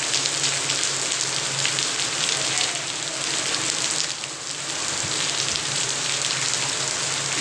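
Rain falling steadily onto a wet concrete yard: a continuous hiss dotted with many small drip and splash clicks.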